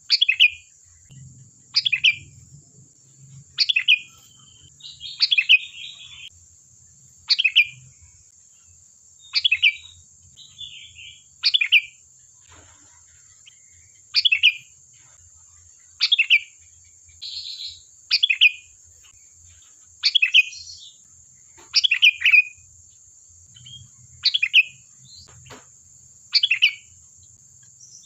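Sooty-headed bulbul (kutilang) calling: short, loud, bright phrases repeated about every two seconds, with softer chattering notes in between, over a steady high-pitched whine.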